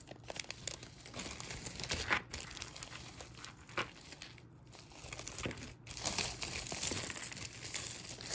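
A hand rummaging through a heap of costume jewelry: beaded necklaces, chains and bangles rustling and clicking against one another. The clicking is thickest and loudest about seven seconds in.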